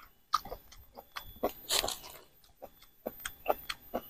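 Close-miked mouth chewing food, with irregular wet clicks and smacks of the lips and tongue.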